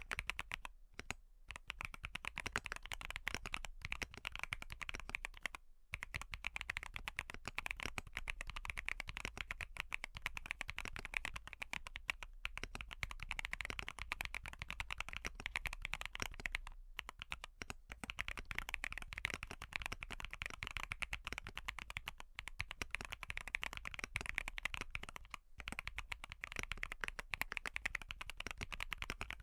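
Steady typing on a Wobkey Crush80 mechanical keyboard fitted with Haimu Sea Wave tactile switches and full foam dampening: a dense, continuous run of keystrokes with a few brief pauses.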